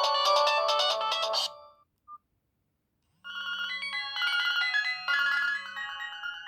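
Nokia 225 ringtones playing from the phone: one busy ringtone melody ends about a second and a half in, and after a moment of silence the next ringtone's melody begins. A low buzz comes in short pulses under both tunes.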